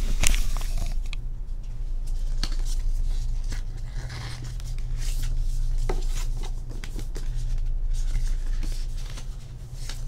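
Paper and thin card rustling and scraping in short bursts as a folded pop-up card and its paper cover are handled and pulled apart, over a steady low hum.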